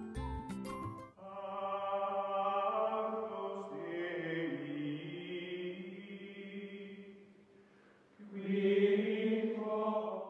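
Outro music: a brief beat in the first second gives way to long held, choir-like chords. The chords fade, swell again about eight seconds in, and then cut off abruptly.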